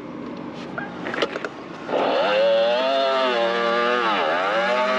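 Talaria Sting electric dirt bike doing a burnout. About two seconds in the rear tire starts spinning against the ground with a loud, sustained squeal that rises, wavers and dips briefly before picking up again.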